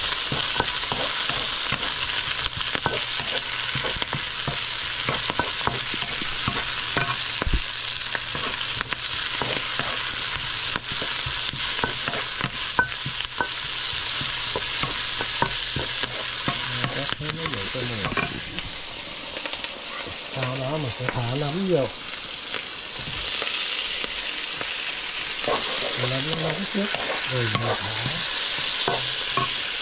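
Chicken with onion and Thai basil stir-frying in a hot pan: a steady sizzle, with the spatula scraping and clicking against the pan over and over.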